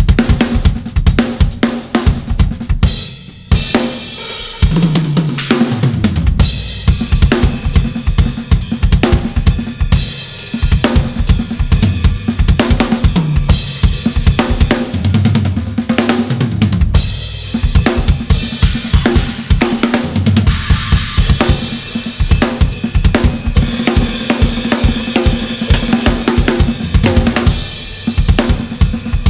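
Studio acoustic drum kit played hard and fast: a dense stream of kick drum strokes under snare, hi-hat and cymbal crashes, broken by tom fills that step down in pitch, once about five seconds in and again around the middle.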